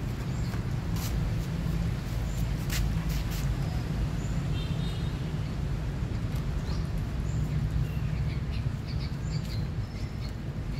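Steady low background rumble, with a few sharp clicks in the first few seconds and scattered short, high chirps.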